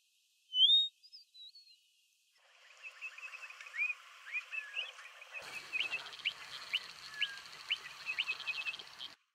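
A few clear, gliding whistled song notes from a Cape (orange-throated) longclaw, the loudest just under a second in. These give way after about two seconds to a busier run of many short bird chirps and calls, which stops abruptly near the end.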